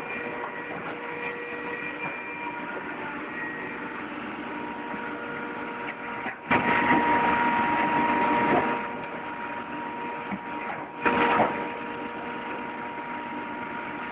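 Hydraulic can press running with a steady motor-and-pump hum and whine. A loud, noisy stretch of about two seconds comes a little over six seconds in, and a shorter loud burst comes about eleven seconds in, as the press works.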